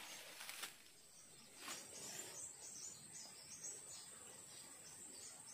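Faint forest ambience: a steady high-pitched insect drone with short repeated chirps over it, and a faint brief noise about two seconds in.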